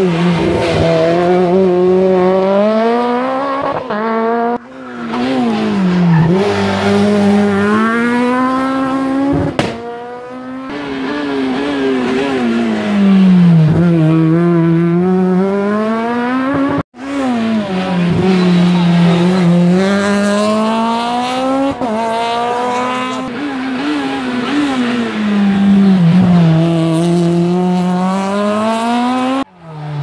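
Rally car engines taking tight hairpins one car after another: each engine's revs fall as it brakes and downshifts into the bend, then climb again in steps through the gears as it accelerates out. The sound cuts abruptly between cars several times.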